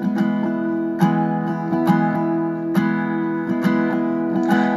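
Background music: an acoustic guitar strumming chords, a fresh strum about once a second, with no voice.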